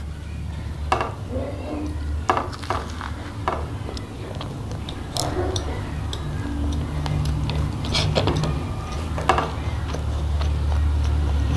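Close-miked eating: chewing and mouth sounds with scattered sharp clicks of dishes and cutlery, over a steady low hum.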